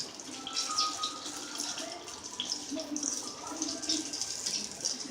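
Hot oil sizzling and crackling in a frying pan after deep-frying prawn fritters, with a steady hiss and many small pops.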